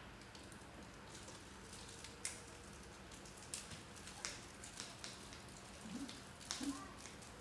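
Faint, scattered light clicks and taps of food and utensils being handled at a table, with two brief soft low vocal sounds near the end.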